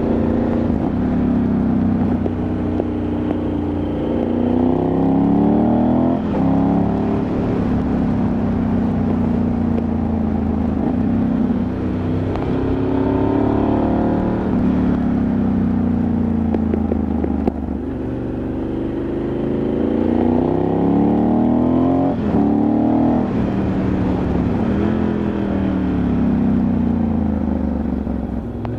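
Ducati Multistrada 1100S's air-cooled L-twin engine under way, its revs climbing and dropping back several times, with sudden breaks in the pitch at the gear changes.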